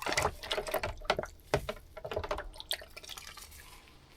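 Ducks dabbling and splashing in their water: a run of quick, irregular drips and splashes, busiest over the first few seconds and thinning out toward the end.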